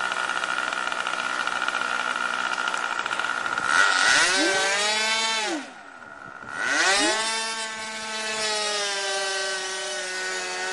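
Model airplane's small nitro engine running together with its electric ducted fans: a steady whine at first, then the pitch rises and falls as it is throttled, dropping much quieter for about a second midway before picking up again and settling to a steady run.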